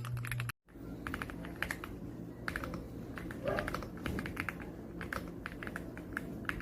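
Fast typing on an AULA F75 gasket-mount mechanical keyboard, a rapid irregular stream of key clicks. About half a second in the sound drops out briefly at an edit, then the typing carries on.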